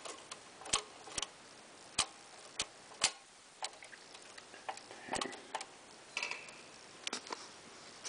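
IBM Model B typewriter's mechanism clicking as its key action is worked: sharp metallic clicks at irregular intervals, one or two a second.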